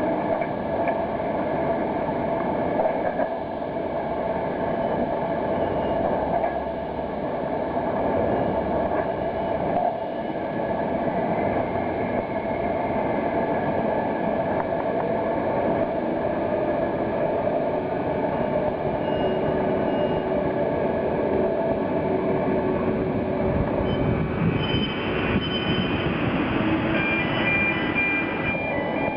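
Container crane hoisting containers: a steady mechanical rumble of its machinery, with thin high squealing tones coming in near the end.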